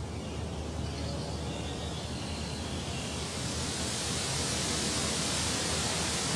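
Jet aircraft noise: a steady rushing rumble that slowly grows louder and brighter, as of a jet climbing out or approaching low.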